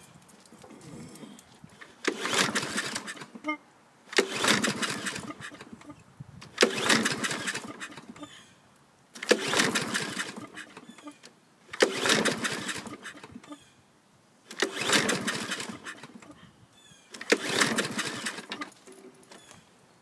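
Briggs & Stratton 675EXi single-cylinder engine on a Husqvarna mower being pull-started seven times in a row, about every two and a half seconds, each pull a short cranking burst that fades without the engine catching. It is the sign of a fuel starvation fault that the owner puts down to a dirty carburetor.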